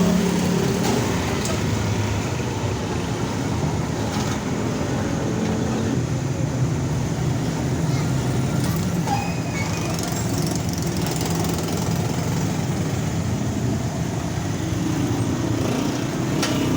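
Steady traffic noise with the low hum of a running vehicle engine, and a few faint clicks.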